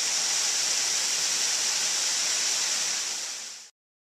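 Small waterfall pouring into a rock pool: a steady hiss of falling water that fades and cuts off about three and a half seconds in.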